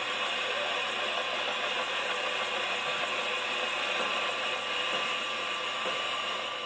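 Steady engine noise, even and unbroken, with no rhythm or change in pitch.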